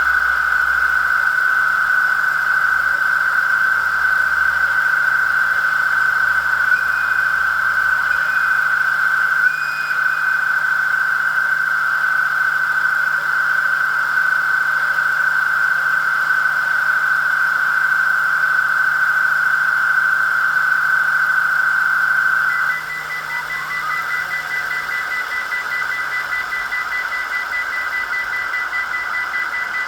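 Sound decoder in an HO-scale DF200 diesel locomotive model playing its diesel engine sound through the model's small speaker, running steadily. About three-quarters of the way through the sound changes: it drops a little in level, a brief rising whine passes, and a thin steady high tone joins in.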